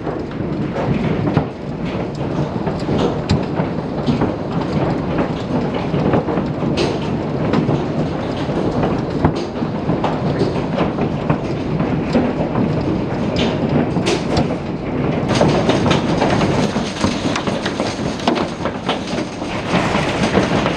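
Heavy hail pelting down, heard through a window: a dense, steady clatter of countless hailstone impacts.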